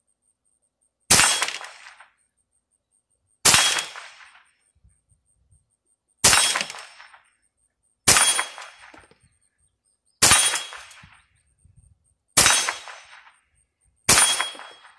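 Ruger 10/22 semi-automatic .22 rifle fired seven times, a sharp crack about every two seconds, each shot trailing off over about a second.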